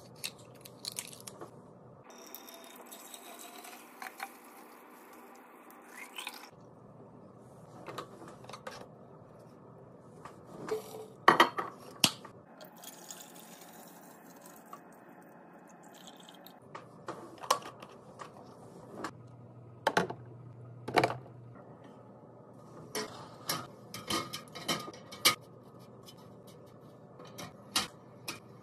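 Food containers, jars and bottles being handled and set down while a fridge is restocked: a string of clinks, knocks and taps, the sharpest ones a little before the middle and again about two-thirds through.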